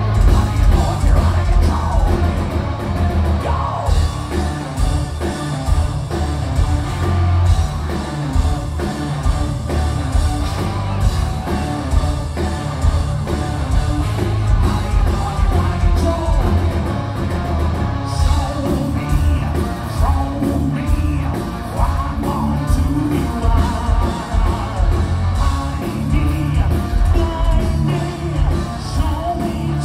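Live progressive metal band playing loud: distorted guitar, bass and drums with singing and shouted vocals, recorded from inside the crowd.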